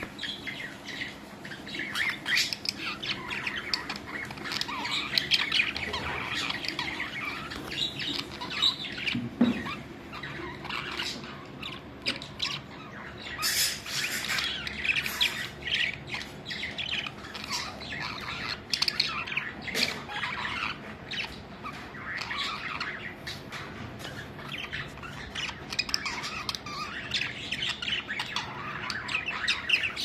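A group of caged budgerigars chattering, with dense, overlapping short chirps and squawks that keep on without a break.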